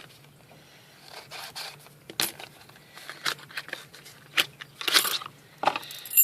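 A brass padlock being handled: a scattering of sharp metallic clicks and short scrapes, one longer scrape about five seconds in, and a bright metallic ring near the end.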